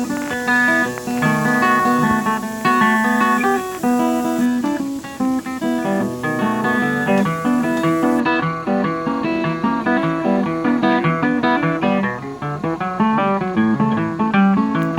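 Background music: a quick picked acoustic guitar.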